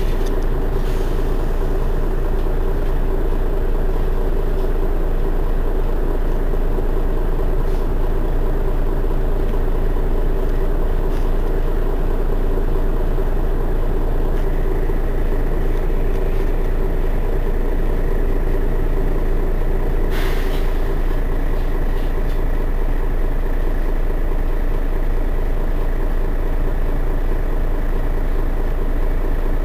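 Mercedes-Benz Citaro city bus's rear-mounted engine idling steadily while the bus stands still. A short hiss comes about twenty seconds in.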